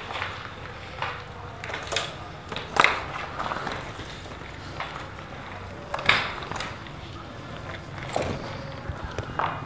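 Footsteps scuffing and crunching over a gritty, rubble-strewn floor, with sharp scrapes and knocks at irregular intervals. The loudest come about three seconds in and again about six seconds in.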